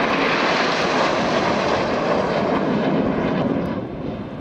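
Nine BAE Hawk T1 jets flying past in close formation: a steady, broad jet roar that fades somewhat about three and a half seconds in.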